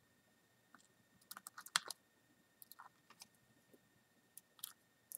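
Faint, scattered small clicks and taps of a precision screwdriver picking up tiny screws and fitting them into the webcam's plastic housing and circuit board, with a quick cluster about a second and a half in and a few more later.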